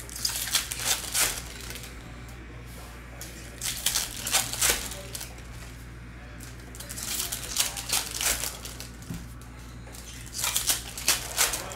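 Topps Chrome trading-card pack wrappers being crinkled and torn open by hand, in four short bursts of crinkling about three seconds apart, over a steady low hum.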